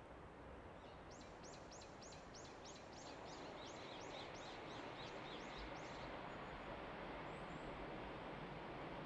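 A small bird calls a quick run of about sixteen short, high, downward-sweeping notes, roughly three a second, for about five seconds. Under it a faint, steady rumble slowly grows louder as an EF81 electric locomotive hauling old-type passenger coaches approaches.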